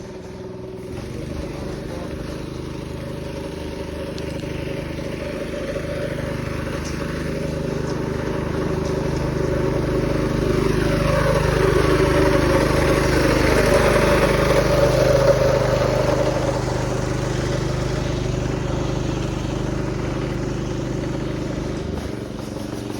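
Motor vehicle engine running, with a steady hum throughout. It grows louder toward the middle as a vehicle passes, its pitch falling as it goes by, then fades somewhat.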